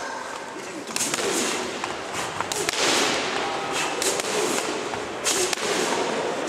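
Boxing gloves and padded focus mitts smacking together in pad work: a series of sharp slaps, about half a dozen, some in quick pairs.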